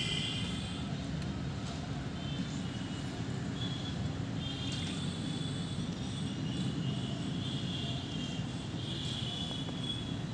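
Steady outdoor background rumble, with faint high-pitched chirps coming and going.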